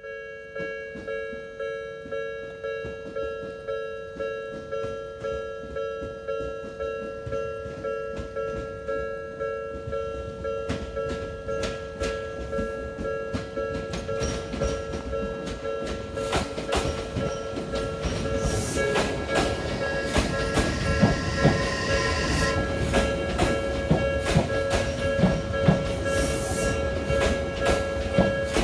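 Japanese level-crossing alarm bell ringing its steady two-tone ding about twice a second. In the second half an Odakyu train arrives, and its wheels clatter over the rail joints in the 'dadan, dadan-dadan' pattern while the bell keeps ringing.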